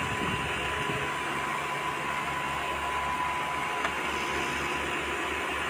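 Mobile rock crusher and screening plant running alongside an excavator loading a dump truck: a steady mechanical din with a low throb and a thin steady whine that stops about four seconds in.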